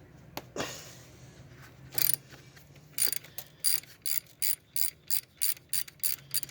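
3/8-inch ratchet turning out the 13 mm bolt of the idler pulley, with a few scrapes of the socket going on at first. Then the pawl clicks in steady strokes about three times a second as the bolt is backed out.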